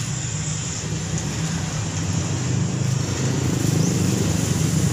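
A steady, motor-like drone with a hiss over it, getting a little louder in the second half.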